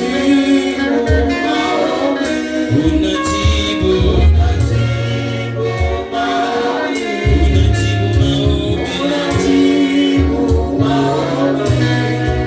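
Live gospel praise-and-worship music: a group of singers carrying a worship song over a band, with sustained bass notes and a steady beat.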